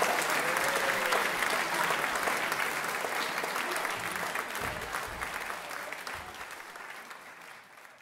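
Audience applauding with steady clapping that gradually fades away toward the end.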